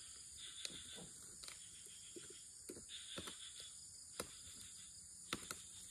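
Faint, steady high-pitched insect chirring, with a few soft clicks and taps scattered through it.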